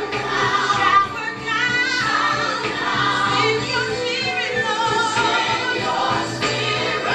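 Gospel song playing: a choir and voices sing long, wavering held notes over instrumental backing.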